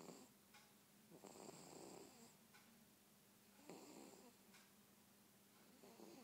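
Faint snoring: a rasping snore about every two seconds, with longer snores about a second in and near four seconds, and a shorter one near the end.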